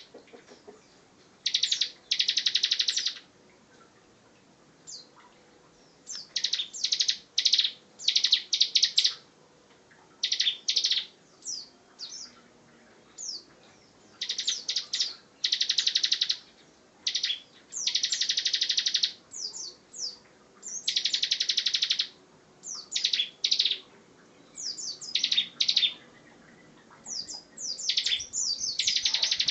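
Bar-winged prinia (ciblek) singing in full 'ngebren' song: dense, high, rapid trills about a second long, several times over, alternating with quick sharp chirps and short falling notes.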